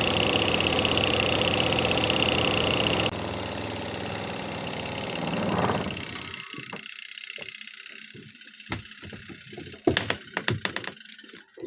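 Washing machine motor running steadily with a high whine. The sound drops suddenly about three seconds in and winds down to a stop by about six seconds, then scattered sharp clicks and knocks follow.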